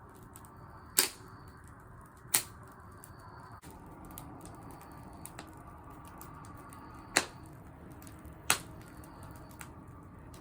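Wood fire crackling in a homemade oil-can fire pit: small ticks throughout and four sharp, loud pops.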